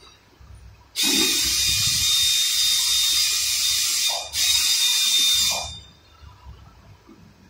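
Compressed air hissing from a pneumatic tool at the front differential in two bursts: a long one of about three seconds starting a second in, then after a brief break a shorter one of about a second and a half.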